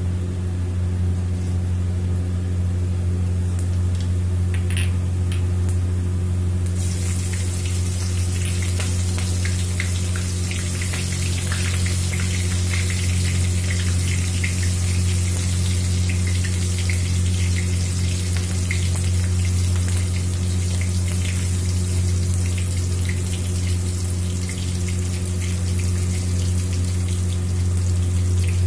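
Cumin seeds and green chillies sizzling and crackling in hot oil in a kadai, the sizzle starting about seven seconds in and going on with many small pops. A steady low hum lies under it throughout.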